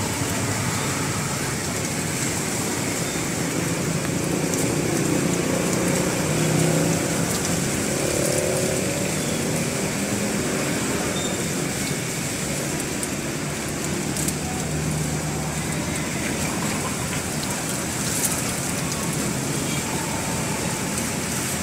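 Batter deep-frying in a wok of hot oil, a steady sizzling hiss, over a low rumble of street traffic.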